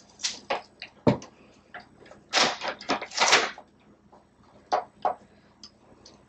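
Handling noise: a few sharp knocks, a dull thud about a second in, and two short scraping rustles around two and a half and three and a half seconds in.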